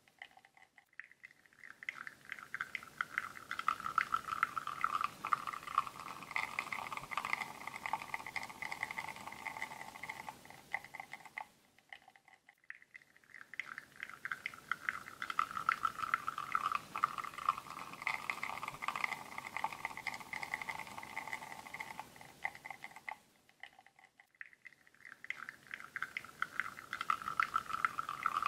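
Espresso running from a bottomless portafilter on a La Marzocco Linea Mini into a cup, a crackling, sputtering trickle. The flow fades away briefly and builds again about every twelve seconds.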